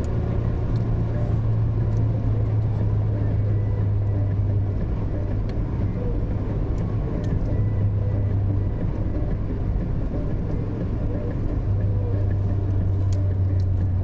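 Car engine and tyre noise heard from inside the cabin while driving: a steady low drone over road rumble. The drone drops back for a few seconds around the middle and comes up again near the end.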